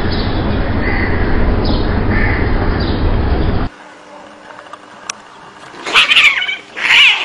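Cats fighting. Faint drawn-out cat yowls under a heavy low rumble of noise, which cuts off abruptly. After a short lull, two loud yowls with bending pitch come near the end.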